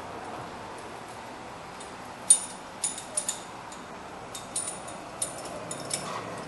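Metal hand tools being handled: a scatter of sharp, light clinks and clicks over steady background noise, the loudest a little after two seconds in, as a brake caliper piston-recess tool is picked up.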